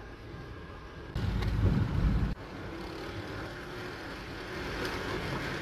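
Car driving, heard from inside the cabin: steady engine and road noise. A much louder low rumble starts about a second in and cuts off suddenly about two seconds in.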